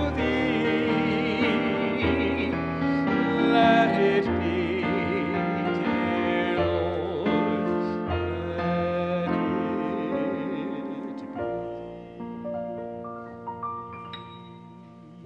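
A solo singer with wide operatic vibrato, accompanied by piano. The voice and chords thin out about eleven seconds in, and the music fades toward the end.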